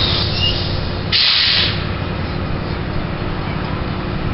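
Diesel locomotive engine running with a steady low throb, with two short bursts of air hiss, one right at the start and a louder one about a second in, typical of the locomotive's air brakes venting.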